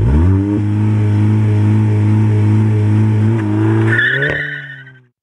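Mk7 Volkswagen GTI's turbocharged four-cylinder engine pulling past at steady revs, its pitch climbing over the first half second and then holding. About four seconds in a high whine joins, pitch lifts a little, and the sound fades away.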